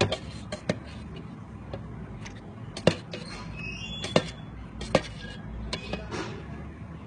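A string of sharp knocks and clicks, the loudest about three, four and five seconds in, over a steady low hum.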